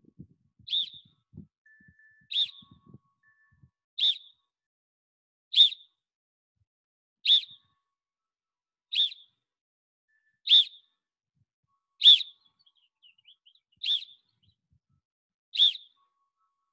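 Coach's whistle blown in short, sharp, high-pitched blasts, ten of them evenly spaced about a second and a half apart. Each blast is the cue for the players to twist and pop their sticks in a draw-control drill.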